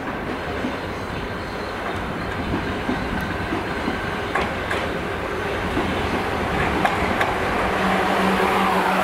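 South Western Railway Desiro electric multiple unit approaching and running alongside the platform. Its rail and wheel noise grows louder with scattered clicks from the wheels, and a steady low hum joins near the end as the carriages come level.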